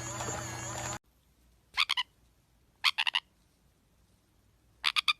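A frog croaking: short calls of two or three rapid pulses, three times about a second apart, starting about a second in over a quiet background.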